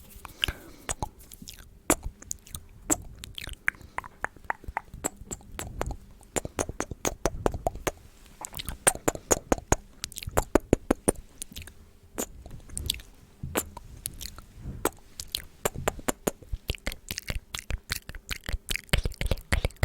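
Close-up ASMR mouth sounds: wet tongue and lip clicks, sparse at first, then in quick, dense runs.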